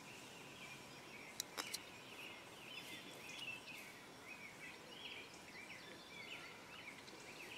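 A few small sharp clicks about a second and a half in, from Leatherman multitool pliers gripping and bending the steel wire of a cut safety pin while shaping it into a hook. Faint bird chirps sound throughout behind them.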